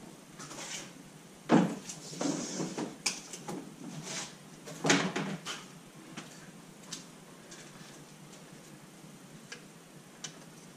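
Workshop handling noises: knocks and rattling of parts or tools being moved about. There are two louder thumps about a second and a half in and about five seconds in, then a few light clicks.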